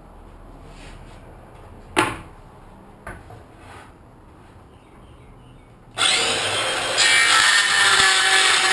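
A single sharp knock about two seconds in. A cordless circular saw starts up about six seconds in and runs loudly, getting louder a second later as the blade cuts into a wooden board.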